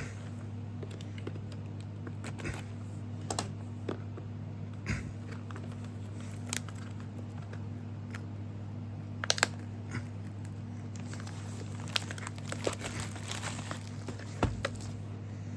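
A trading-card booster box being opened by hand: scattered crinkles, tearing and small taps of plastic wrap and cardboard, growing busier in the last few seconds. A steady low electrical hum runs underneath.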